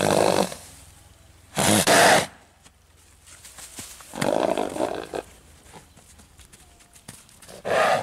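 Bay Arabian filly snorting, blowing hard through her nostrils in four loud blasts a couple of seconds apart, the third the longest.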